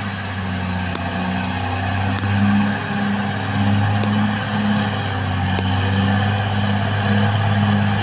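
Caterpillar D6R XL bulldozer's diesel engine running steadily as the dozer works, a low drone that pulses about twice a second, with a few faint clicks.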